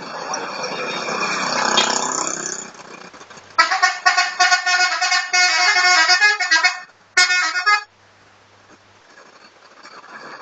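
Telolet musical air horn of a Subur Jaya super-high-deck bus playing a loud multi-note tune for about three seconds, then a short second blast. Before it, road noise of the passing vehicle swells and fades.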